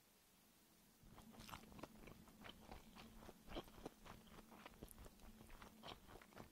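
Close-miked chewing of a bite of Spam-and-egg gimbap: a quick, irregular run of soft crunches and clicks, starting about a second in.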